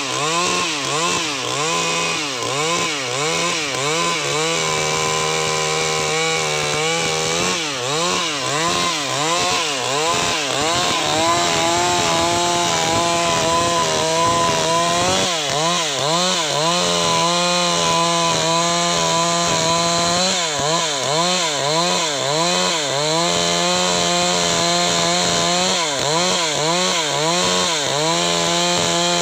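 Stihl MS382 two-stroke chainsaw running under load as it rips lengthwise through gmelina (white teak) wood. The engine pitch swoops up and down about once a second, with stretches where it holds steady.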